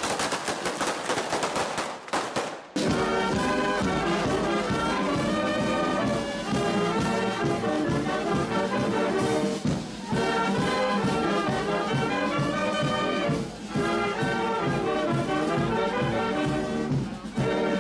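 Rapid clicks for about the first three seconds, then brass-band music with a steady beat starts abruptly.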